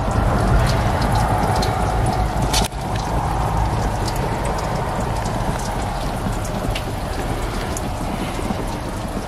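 Water spraying and pattering onto a car's bodywork in a steady hiss, with scattered drips and ticks and a low rumble underneath.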